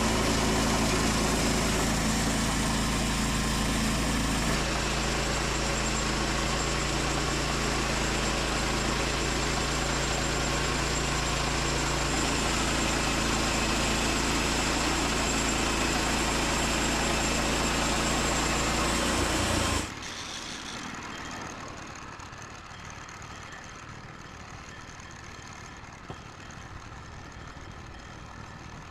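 Woodland Mills HM122 band sawmill running steadily, its engine under load as the blade saws through a cherry log. About two-thirds of the way through, the engine sound drops off sharply, leaving a much quieter background with a single small tick.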